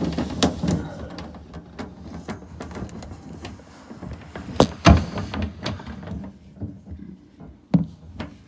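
Irregular knocks, clunks and rattles of a household refrigerator being handled: its door, shelves and drawers banging. The loudest are two sharp knocks about four and a half to five seconds in and another near the end.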